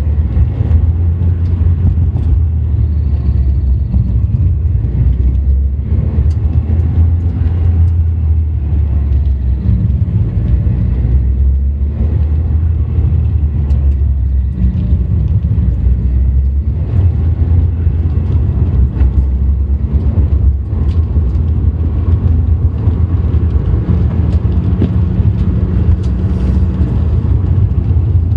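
Toyota Celica T Sport engine running with a steady low rumble, while the owner tries to capture a strange noise that appears when revs drop below 2,000 rpm.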